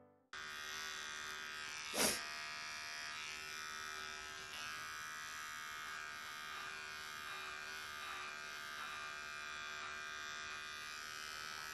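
Handheld electric hair clipper running with a steady buzz as it clips a cat's belly fur. A single sharp click about two seconds in.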